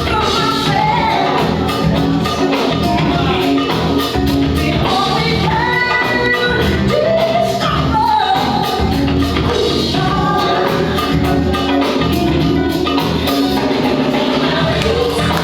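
Loud funk music played over a sound system: a singing voice over a steady drum beat, the kind of track a DJ spins for locking dance.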